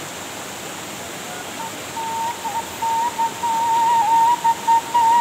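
Waterfall and stream rushing steadily, with a Sundanese suling bamboo flute coming in about a second and a half in and playing a slow, ornamented melody that soon stands above the water.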